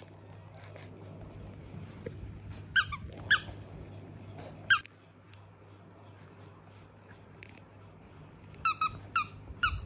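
Shih Tzu puppy giving short, high, squeaky whimpers, some single and some in a quick run of about four near the end, over a faint steady hum.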